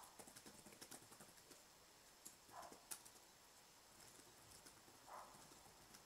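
Faint typing on a laptop keyboard: irregular light key clicks, in a quick run at the start and a few scattered later, over near-silent room tone.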